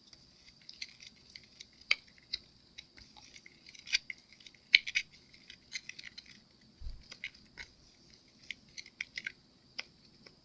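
A mixing stick stirring and scraping flocking powder in a small container, making irregular small clicks and scratchy taps.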